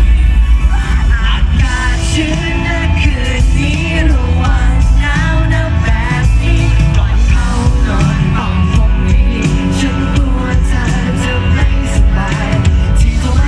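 Live rock band playing a song: lead vocals over drums, bass, guitar and synthesizer, loud and continuous.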